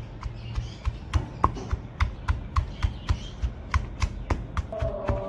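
Stone pestle pounding garlic cloves and crushed spice seeds in a stone mortar: a steady run of dull knocks, about three a second. Music with a held tone comes in near the end.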